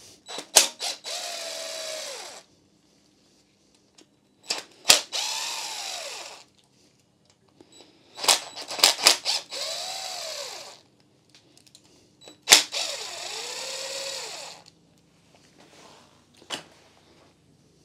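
DeWalt cordless power tool undoing four 10 mm bolts, one after another. Each run starts with a few sharp knocks as the bolt breaks loose, then a motor whine that rises and falls in pitch as the bolt spins out.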